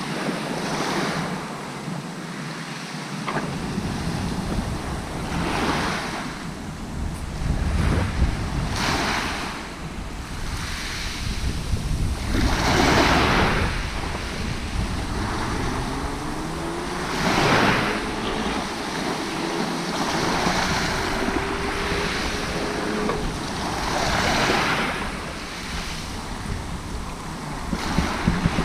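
Sea waves washing onto the shore, swelling every few seconds, with wind on the microphone.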